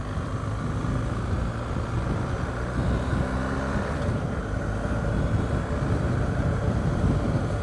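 BMW R 1250 GS boxer-twin engine running steadily while riding, under a continuous low rush of road and wind noise.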